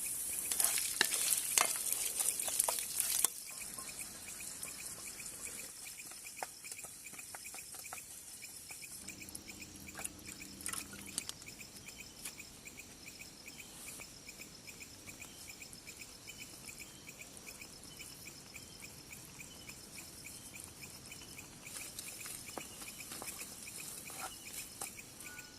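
Mustard seeds sizzling and crackling in hot oil in a camping pan for about three seconds, then the sizzle cuts off abruptly. After that, quieter cooking noises with a few faint clicks of stirring, under steady pulsing cricket chirps.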